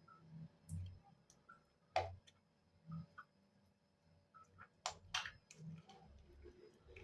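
A few faint, sharp clicks over a quiet background: the loudest about two seconds in, then two close together around five seconds in.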